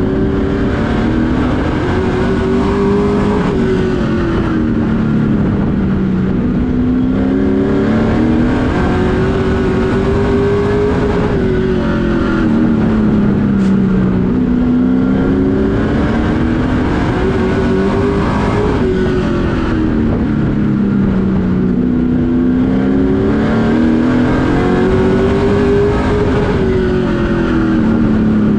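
Race truck's engine heard from inside the cockpit while lapping an oval, the pitch climbing as it accelerates down each straight and dropping as it lifts for each turn, about every seven to eight seconds. That is four climbs and falls, roughly two laps.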